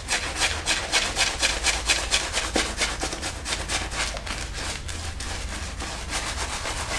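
Zenith 502 silvertip badger shaving brush rubbing Meissner Tremonia Gentle Menthol shaving cream into a lather on the face, a quick run of brush strokes, several a second, scrubbing against short stubble.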